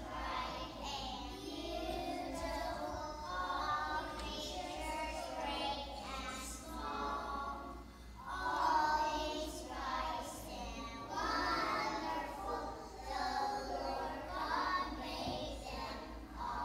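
A choir of young children singing a song together.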